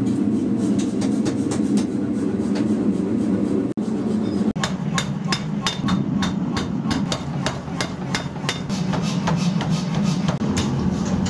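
Rapid, evenly spaced hammer blows on metal during forging, about four a second, over a steady low machine hum, with two brief breaks about four seconds in.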